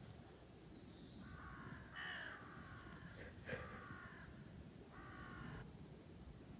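A crow cawing faintly, four short harsh calls spread over a few seconds.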